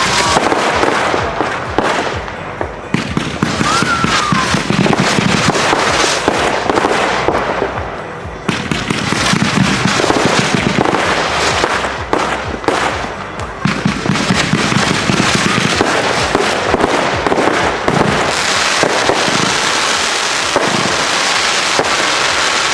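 Three consumer firework cakes firing at once, a continuous barrage of rapid bangs and crackling that eases briefly about eight seconds in, then picks up again.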